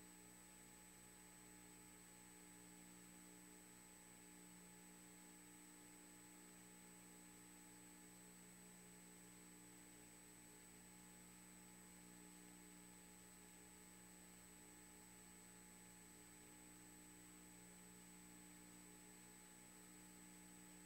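Near silence: a faint, steady electrical hum with a thin high-pitched whine, unchanging throughout.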